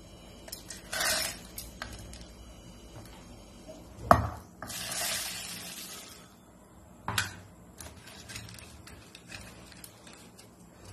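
Whole spices being tipped into a steel mixer-grinder jar: a few knocks of steel on steel, the loudest about four seconds in, and cumin seeds pouring in from a steel bowl with a rushing patter for about a second and a half.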